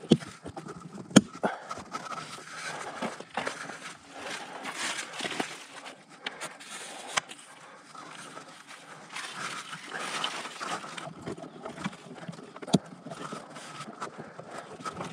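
Hands fitting a pole to suction-cup mounts on a trailer's side wall and tying it on with ball bungees: continuous rustling and handling, with a few sharp clicks and knocks, the first about a second in and the last near the end.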